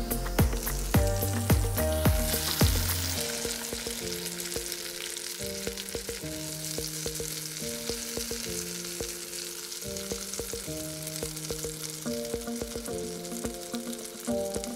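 Meat and cabbage wedges sizzling on the hot grate of a Weber electric grill, a steady frying hiss. Background music plays over it: a bass beat for the first few seconds, then softer held chords.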